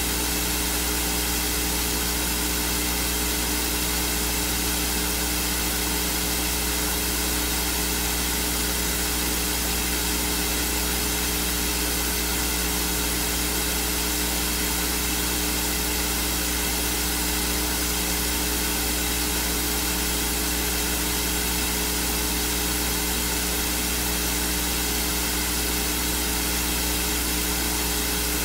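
Steady, unchanging hiss from the recording's audio chain, with a low electrical hum and a few faint steady tones underneath; no voice comes through it.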